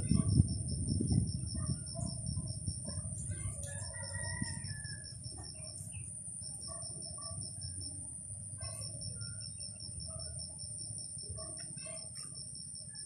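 Rooster crowing once about four seconds in, over a steady high insect drone with a fast pulsing trill and scattered bird chirps. A low rumble is loudest at the start and fades.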